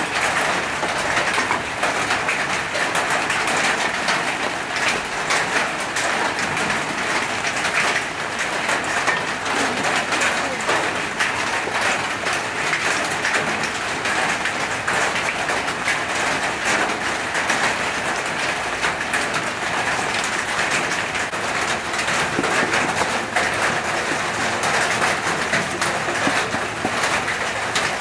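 Steady rain falling, a dense even hiss pattering on surfaces.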